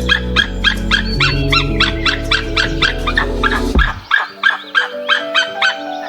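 Dog barking in a rapid run of short, yappy barks, about four a second, stopping about five and a half seconds in, over background music.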